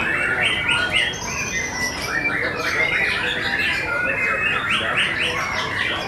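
White-rumped shamas singing: a dense, unbroken stream of quick whistled and chattering notes.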